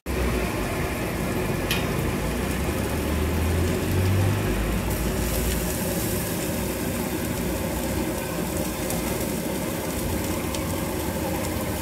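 Food frying in hot oil in a pan, a steady sizzle with a few sharp clicks, and a low rumble from passing traffic in the first half.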